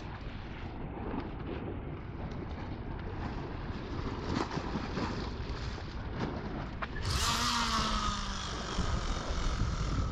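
Wind buffeting the microphone as a steady low rumble. About seven seconds in a louder, brighter rushing noise with a faint falling whine starts suddenly, then cuts off at the end.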